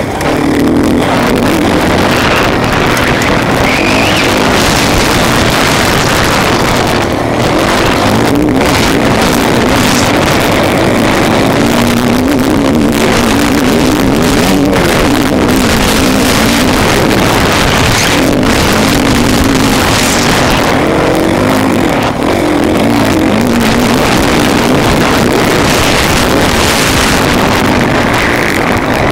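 Motocross bike engine at race pace, heard close up from the rider's position, its pitch rising and falling with the throttle through the track's jumps and turns, mixed with wind rushing past the microphone.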